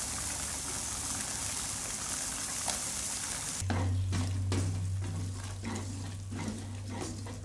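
Oil sizzling steadily in a frying pan of green chili mixture. About three and a half seconds in, the sizzle gives way to a spatula scraping and stirring a ground green spice paste as it is sautéed in a nonstick pan: short repeated strokes over a steady low hum.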